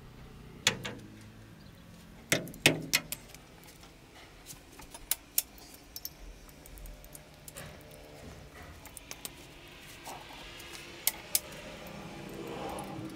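Sharp metallic clicks and clinks from a torque wrench and socket on the cylinder head bolts as they are tightened to 65 Nm. The clicks come singly and in quick pairs, loudest in a cluster a couple of seconds in, with more around five seconds and near the end.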